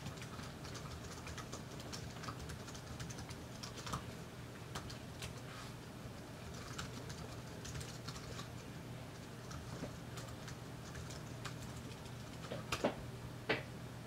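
Typing on a computer keyboard: a steady run of light key clicks, with two louder clicks near the end, over a faint low hum.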